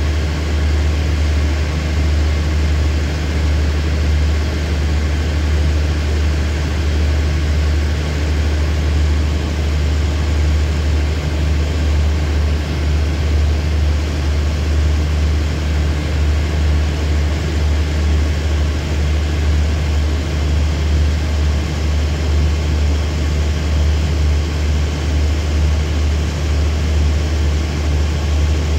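Hitachi diesel-electric locomotive no. 4512 idling steadily with the train standing still: an even, low engine hum.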